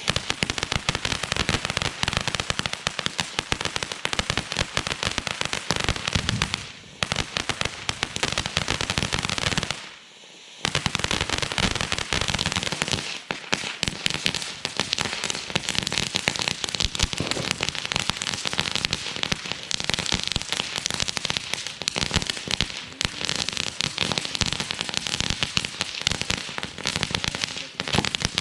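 Fireworks crackling: a dense, rapid run of small sharp pops that keeps going, broken by two short lulls, about seven and ten seconds in.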